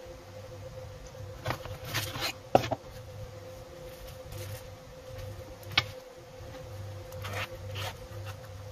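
Hands handling unboxed earbud accessories: paper rustling as a printed manual is leafed through, with scattered short clicks and taps, the sharpest about two and a half seconds in, and the zippered carrying case handled near the end. A faint steady hum runs underneath.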